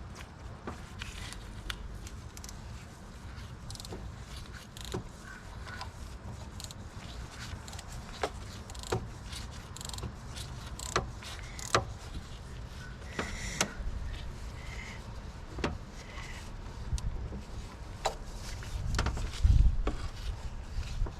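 Irregular metallic clicks and knocks of hand tools working on bolts at a car's power steering pump, with a heavier low thump near the end.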